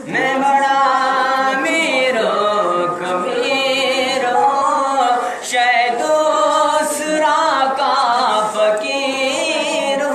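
A boy singing a naat solo and unaccompanied into a microphone, in long held notes with wavering ornaments.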